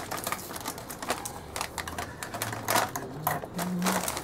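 Plastic snack bag crackling and crinkling as hands pull it open, a quick run of sharp clicks with a few louder crackles near the end.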